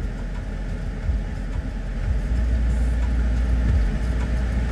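Steady low rumble of idling vehicle engines in stopped traffic, heard from inside a car.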